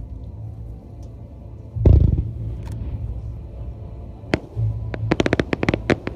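Starmine fireworks shells bursting over a music soundtrack. There is a heavy boom about two seconds in, a single sharp crack later, then a rapid run of cracks near the end.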